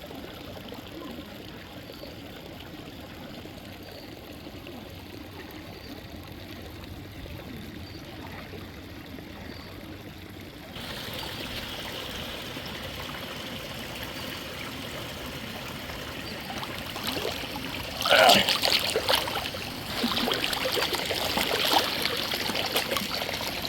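Hot-spring stream water trickling and flowing steadily. About halfway through it suddenly becomes louder and brighter, and in the last few seconds there are louder bursts of splashing.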